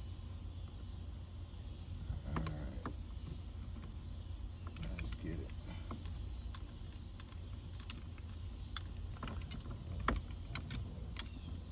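Scattered light clicks and knocks of tools and parts being handled at a car's steering column, over a steady high-pitched whine.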